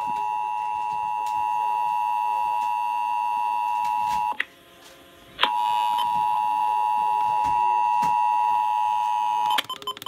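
Emergency Alert System attention signal, the steady two-tone alert just under 1 kHz, sounding from a Midland weather radio's speaker. It cuts out for about a second near the middle, with a click as it stops and again as it returns.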